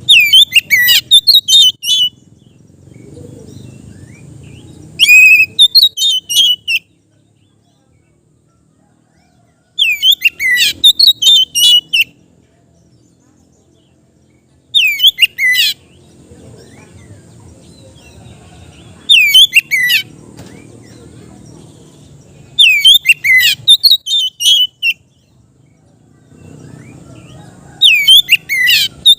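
Oriental magpie-robin (kacer) singing a loud, relaxed song in short phrases of rapid whistled and sweeping notes. Each phrase lasts one to two seconds and they come about every four to five seconds, with a faint low background rumble in the gaps.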